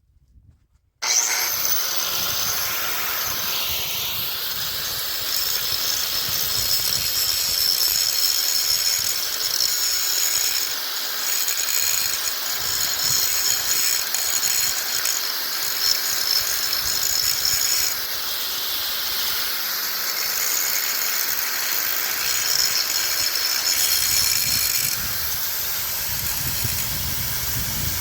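Angle grinder with a thick cut-off disc starting about a second in and cutting through a metal exhaust pipe: a steady high hiss and whine whose pitch dips briefly twice as the disc bogs under load.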